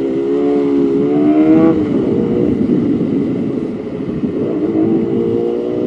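Motorcycle engine pulling under way, its pitch climbing through the first two seconds, rougher for a while, then rising slowly again near the end, with steady road and wind noise.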